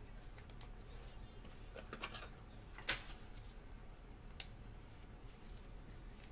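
Clear plastic one-touch card holder handled with gloved hands: a few faint clicks and taps, the sharpest about three seconds in, as the card is fitted into the case.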